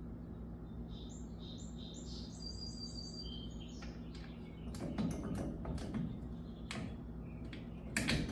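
Birds chirping over a steady low hum, then a string of sharp metallic clicks and knocks from tools and small parts being handled, loudest about five and eight seconds in.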